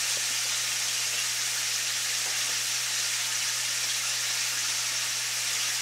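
Chicken wings frying in hot oil: a steady sizzle, with a low steady hum beneath it.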